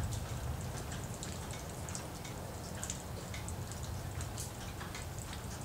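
Rain falling, with scattered drops and drips ticking on a nearby surface over a steady low rumble.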